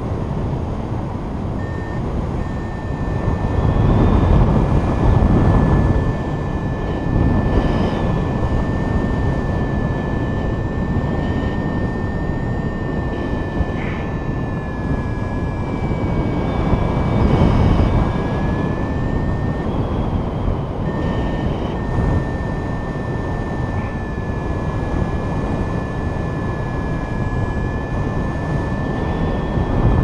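Wind rushing over the microphone of a paraglider pilot in flight, swelling a couple of times. A thin, steady high tone with fainter higher tones sounds over it, wavering slightly in pitch and breaking off briefly a few times.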